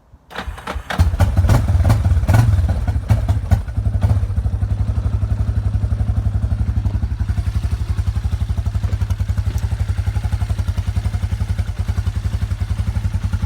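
Yamaha Warrior 350 ATV's single-cylinder four-stroke engine starting: it catches within about a second, runs unevenly with some clatter for a few seconds, then settles into a steady idle.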